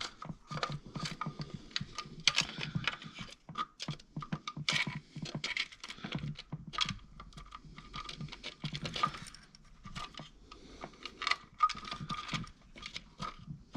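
Irregular light metallic clicking and rattling as a timing chain guide is pushed and turned against the timing chain, trying to fit it into place by hand.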